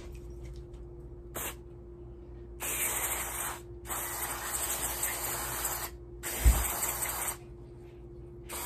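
Aerosol can of mass airflow sensor cleaner spraying through its straw onto an oxygen sensor, cleaning it. A brief puff about a second in, then three sprays of one to two seconds each, with a dull thump during the third; another spray starts right at the end.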